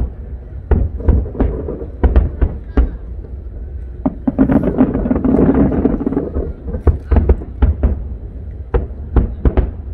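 Fireworks display: a rapid, irregular run of aerial shell bursts going off, with a dense crackling salvo about four seconds in.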